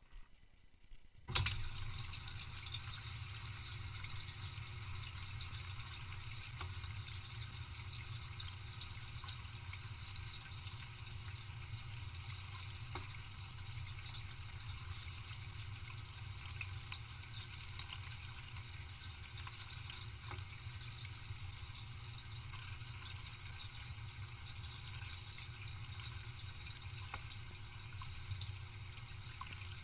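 Dishwasher starting up about a second in, then running steadily: water rushing inside with a low pump-motor hum.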